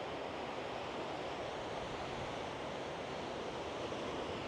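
Steady rush of sea waves mixed with wind, an even noise without breaks.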